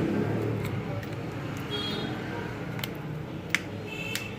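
Plastic back cover being pressed onto a smartphone, snapping into place with a few sharp clicks over a steady background hum.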